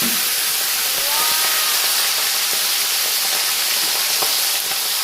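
Plucked quail frying in a pan of hot oil: a loud, steady sizzle.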